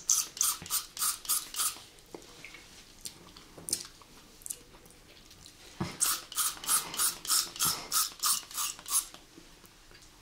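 Rapid squirts of a handheld sour candy pump spray into an open mouth, about three a second: a short run of squirts right at the start, then a longer run of about ten squirts from about six seconds in.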